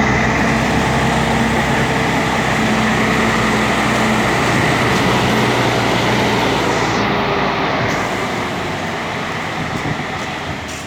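Mercedes-Benz O-400 RSD coach's diesel engine running loud and steady. About eight seconds in, the deep engine sound starts to die down and the overall level drops.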